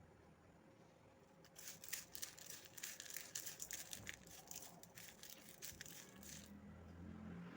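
Faint crinkling and crackling, like material being crumpled or handled, for about five seconds, followed near the end by a brief low hum.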